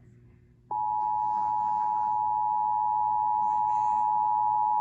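Emergency Alert System two-tone attention signal (853 and 960 Hz sounded together) on a radio relay. It starts abruptly under a second in and holds steady, announcing that an emergency alert is about to be read, here a severe thunderstorm warning.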